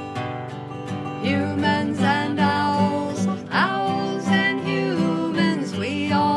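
Song with acoustic guitar strumming, and a singing voice coming in about a second in.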